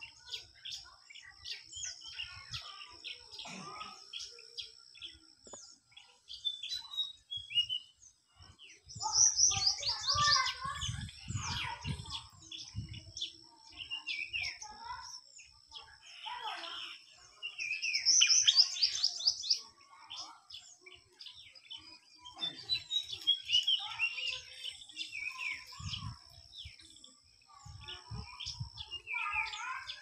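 White-throated fantail and other small songbirds chirping and singing in repeated bursts of quick, high notes, with a faint steady high whine underneath.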